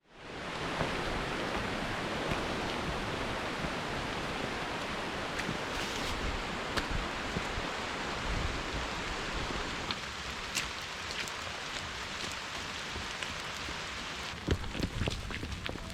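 Heavy rain falling, a steady hiss with scattered sharp drip ticks; it fades in at the start, and a cluster of louder taps comes near the end.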